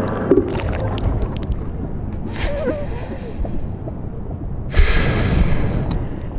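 Close-up wet mouth sounds heard from inside the mouth: sticky clicks of lips and saliva in the first second and a half, a brief gulp-like sound near the middle, and a louder rush of noise about five seconds in, over a low steady rumble.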